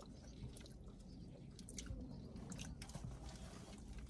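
Close-up chewing and biting of sub sandwiches, with scattered soft wet mouth clicks.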